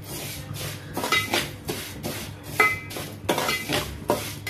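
A metal spoon scraping and clinking against a metal pan in irregular strokes, about two to three a second with brief metallic rings, as dry vermicelli (semiya) is stirred and roasted.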